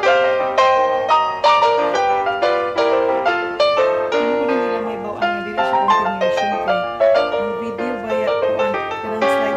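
Background piano music: a solo piano playing a steady stream of notes and chords.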